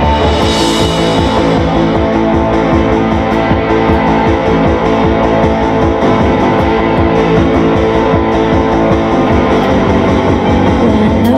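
Live rock band playing an instrumental passage, with electric guitar and bass guitar to the fore.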